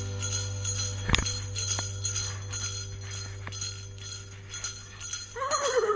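Small jingle bells shaking continuously over a steady low hum, with a sharp click about a second in. Near the end there is a short pitched call that rises briefly and then falls.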